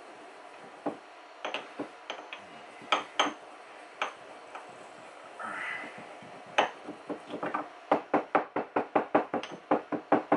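A pestle pounding mustard seeds in a stone mortar. There are scattered sharp knocks for the first several seconds, then a quick, even run of strikes at about five a second over the last two seconds.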